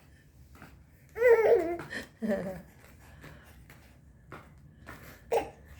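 Baby babbling: a loud, wavering high-pitched squeal about a second in, a shorter lower sound right after it, and a brief vocal near the end.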